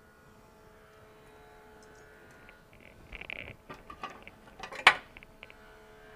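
Quiet handling of a potted orchid and a pair of scissors: light rustles and small clicks, with one sharp click just before five seconds in, over a faint steady hum.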